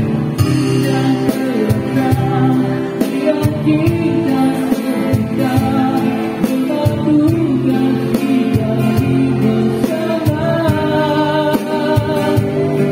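Live busking band playing a song: a voice singing through a microphone over a strummed guitar, with a snare drum and cymbals struck with sticks keeping a steady beat.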